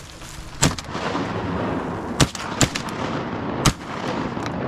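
Shotguns firing during a duck hunt: four loud shots spread over about three seconds, with ringing echo between them.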